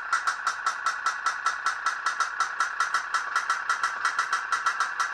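Candle-heated pop-pop boat running, its little steam boiler popping in a fast, even rhythm of about six pops a second.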